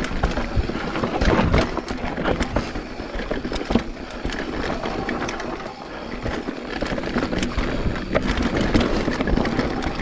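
Giant Trance 27.5 full-suspension mountain bike riding down a rough dirt-and-rock trail. The tyres rush over the ground, and the bike knocks and rattles often as it hits rocks and roots.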